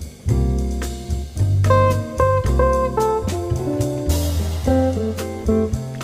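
Background music: a guitar-led jazzy tune with drums.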